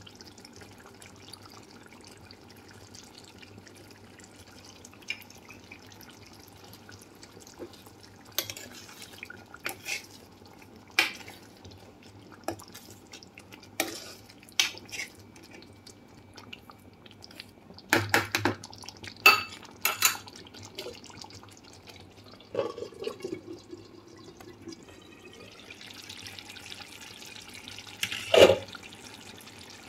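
Chicken curry simmering in a pan, the thick gravy bubbling with irregular soft pops. A spoon stirs and knocks against the pan now and then, in a cluster past the middle and once loudly near the end.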